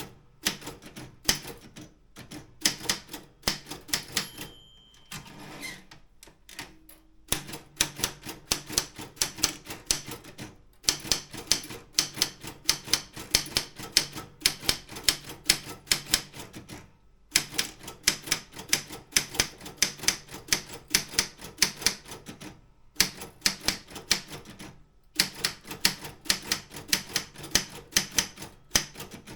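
Optima M16 typewriter being typed on at a brisk pace: fast runs of sharp key clicks, several a second, broken by brief pauses. There is a longer lull about five seconds in.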